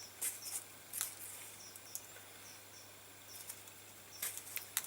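Hand saddle-stitching leather: needles and waxed polyester thread pulled through pre-punched holes, making short rasps, a few near the start and a quick cluster near the end.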